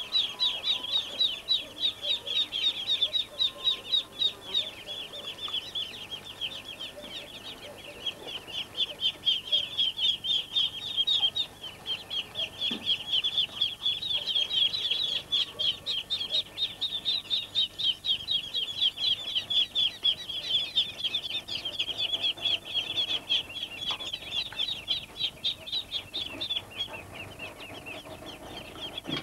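Muscovy ducklings peeping nonstop in a rapid run of short, high, downward-sliding peeps, several a second.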